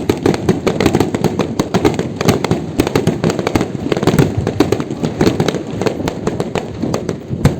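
Fireworks going off in a dense, continuous run of sharp bangs and crackles, many a second, with no let-up.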